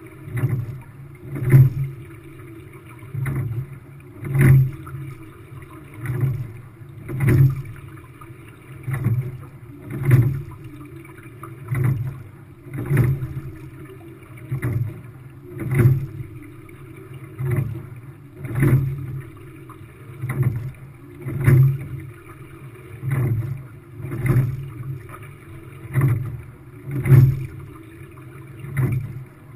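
Quadruple sculling shell being rowed at steady pace: sharp knocks from the oars in their oarlocks, with the splash of the blades, recur about every second and a half over a steady rush of water along the hull.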